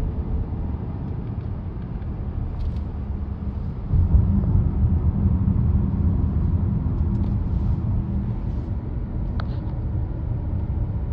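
Car road noise heard from inside the cabin while driving: a steady low rumble that gets louder about four seconds in.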